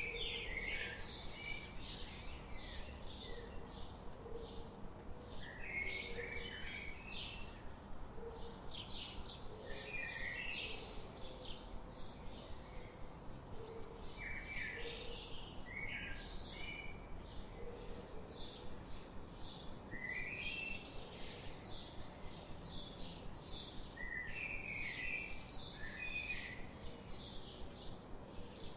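Many small birds chirping at once: quick, high chirps repeat several times a second in a busy chorus over a steady background hiss. A fainter, lower call recurs underneath.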